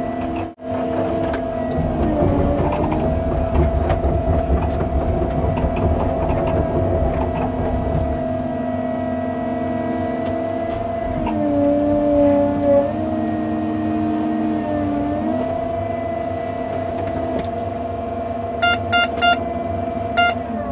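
Cat 309 CR mini excavator's diesel engine running steadily under working load, its pitch sagging briefly about two seconds in and again for several seconds midway as the load comes on. Four short beeps sound near the end.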